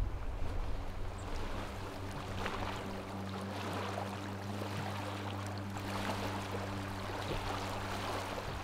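Small waves lapping against a pebble lakeshore in a steady wash, with a faint steady low hum underneath.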